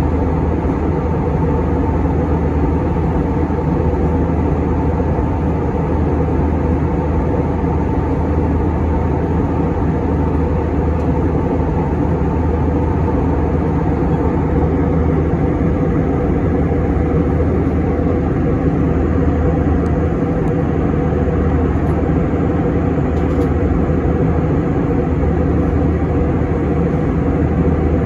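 Steady low cabin drone inside an Airbus A321 jet airliner at cruise: jet engine and airflow noise, unchanging throughout.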